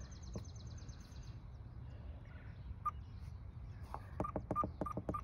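Worx Landroid robotic mower's control-panel keypad beeping as its buttons are pressed. There is a single short beep about three seconds in, then a quick run of about five button clicks, each with a beep, near the end.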